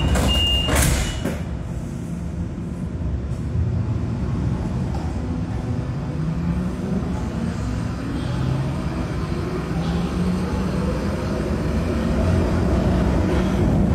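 Munich U-Bahn B-Wagen train heard from on board. A high beep ends in the first second, followed by a thud. The train then pulls away, its traction motor tones slowly rising in pitch as it picks up speed, over steady rolling noise.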